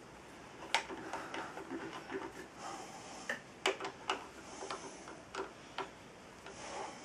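Scattered light metallic clicks and taps at irregular intervals as steel feed handles are fitted into the feed hub of a benchtop drill press.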